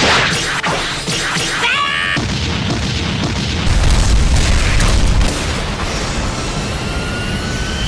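Battle sound effects: a few sharp impacts, then a deep booming rumble that swells about four seconds in and eases about a second later, with a faint rising tone near the end.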